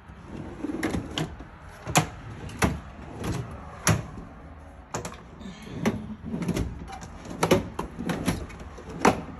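Metal tool chest drawers sliding open and shut on their runners, with a string of sharp knocks and clunks, the loudest about two, four, seven and a half and nine seconds in.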